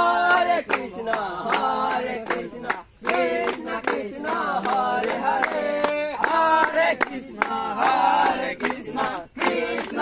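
A group of young men chanting together in unison, keeping time with rhythmic hand-clapping, in phrases with brief breaks about three seconds in and near the end.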